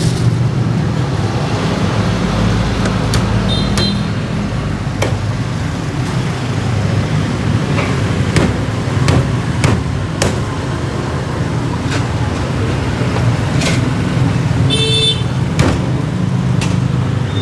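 Road traffic running steadily past, with scattered sharp knocks and clicks and a brief high-pitched tone near the end.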